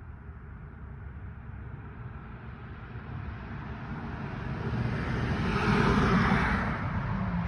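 A vehicle passing, its rushing noise growing louder to a peak about six seconds in and then easing off.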